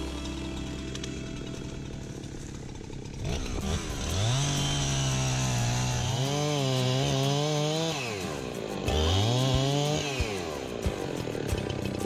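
STIHL MS251 two-stroke chainsaw idling, then revved up into the brush and limbs: the engine note climbs, holds under load while cutting, and drops back to idle, twice. It starts climbing again near the end.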